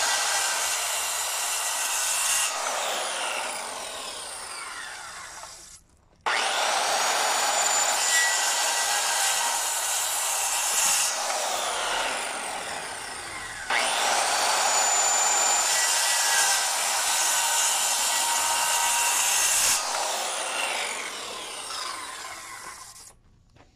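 Corded circular saw cutting into a wooden board three times, each cut followed by the blade winding down with a falling whine. The cuts are a row of shallow kerfs, made so the wood between them can be chiselled out to seat a stair step in the stringer.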